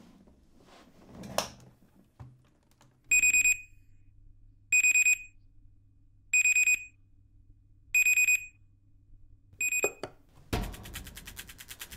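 Bedside alarm clock beeping: five bursts of high electronic beeps about a second and a half apart, the last one cut short just before ten seconds in. A brief swish comes shortly after the start, and music starts suddenly near the end.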